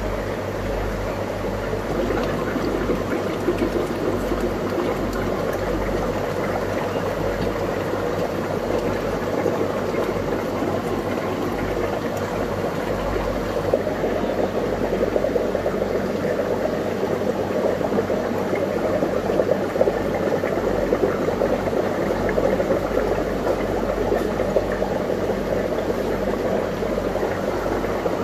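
Steady bubbling and trickling water from aquarium filters and air stones, with a low steady pump hum underneath.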